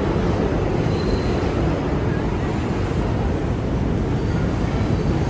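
R62A subway train on the far track pulling out of the station, a steady rumble of wheels on rails and traction motors.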